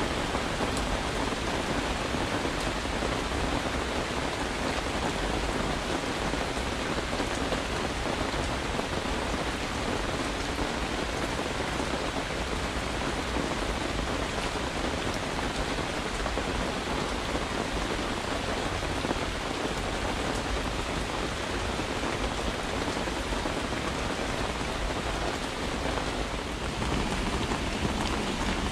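Steady rain falling, heard from under a camping tarp.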